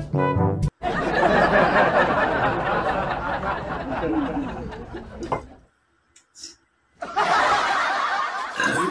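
Laughter sound effect, several voices laughing together. A short tail of brass music cuts off under a second in. The laughter stops for about a second past the middle, then starts again.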